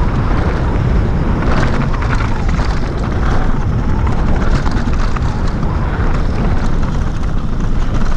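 Wind rumbling on the camera microphone while a mountain bike rolls downhill, with faint rattling of the bike over rough ground.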